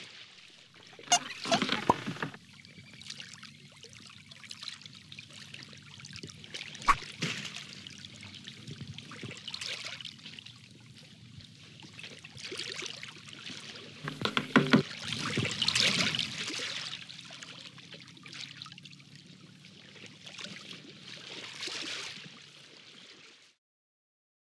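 Sea water sound effect: waves washing in slow swells, with a few sharp splashes or knocks about a second in, near seven seconds and around fourteen to fifteen seconds. It cuts off just before the end.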